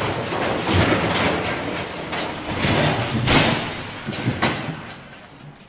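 Steel lattice crane toppling and crashing to the ground: a long rumbling metal clatter with several heavy impacts, dying away near the end.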